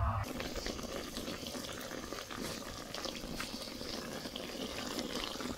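Water boiling in a metal pot with grilled catfish pieces in it: a steady bubbling hiss dotted with many small pops, starting a moment in.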